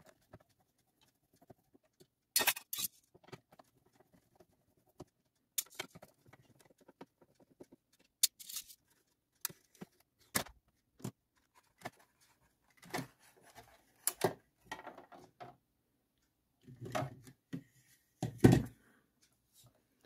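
Screwdriver and plastic handling sounds as the plastic front bumper of a Xiaomi robot vacuum is unscrewed and pried off: irregular clicks and knocks, with two heavier thumps near the end.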